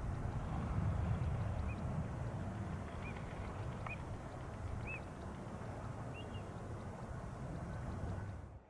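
Steady wind noise on the microphone, with about five short, high bird calls scattered through the middle; the sound cuts off suddenly near the end.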